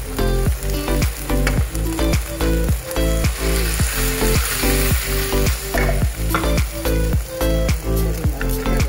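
Rice noodles (bihon) sizzling as they are stir-fried in a wok and turned with a wooden spatula, under background music with a steady beat.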